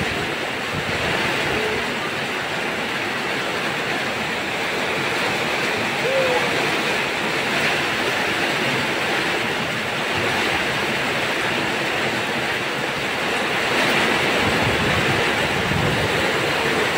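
Heavy rain pouring steadily onto a swimming pool's surface and the paving around it: a loud, even hiss of water.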